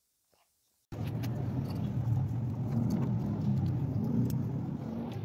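A car engine running steadily at idle, cutting in abruptly about a second in, with a few faint clicks over it.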